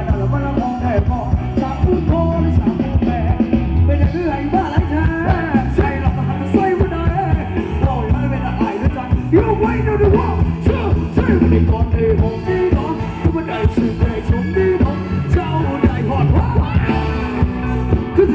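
Live Thai ramwong dance-band music: a singer over a band with a steady dance beat.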